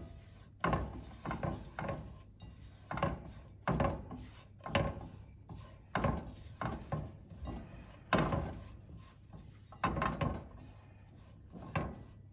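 A spoon scraping around a pan, stirring cocoa powder into ghee to work it into a lump-free paste, in repeated strokes about one or two a second.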